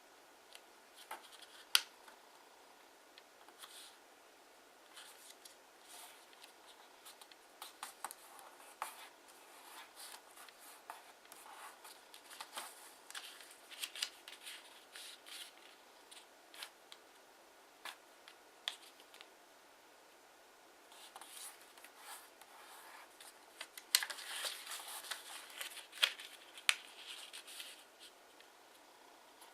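Kraft origami paper being folded and creased by hand: scattered crisp rustles and crackles, with a busier stretch of crinkling near the end.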